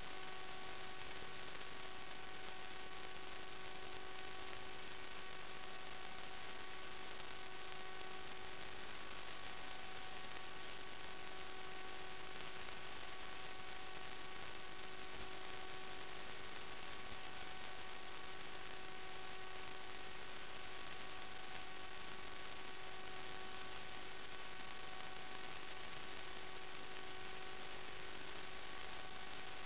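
Steady electrical hiss with a constant buzzing hum of several fixed tones, unchanging throughout: noise on the audio track of an analog FPV video feed rather than any real sound, since the hum does not follow the flight.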